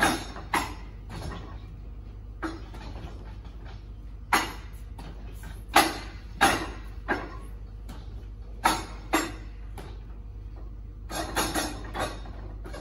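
Wing Chun wooden dummy (mook yan jong) being struck as a student works through the form: sharp wooden knocks and clacks of forearms and hands hitting its arms and trunk, at uneven intervals, with a quick flurry of strikes near the end.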